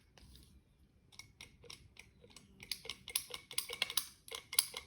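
Trigger and plunger of a copy DeVilbiss GTI Pro Lite spray gun being worked by hand, giving sharp mechanical clicks that come faster and louder from about three seconds in. It is a test of whether the plunger, fitted with new return springs, now moves freely instead of sticking.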